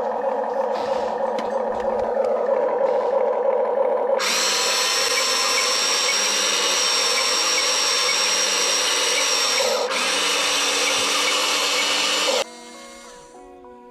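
Small electric motors of a 1/14 remote-control excavator whirring as it is worked. The sound changes suddenly about four seconds in to a louder, higher whine, dips briefly, and cuts off abruptly near the end, leaving faint music.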